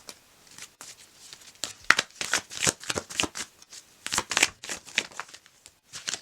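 Tarot cards being shuffled and handled by hand: a run of quick papery flicks and slaps.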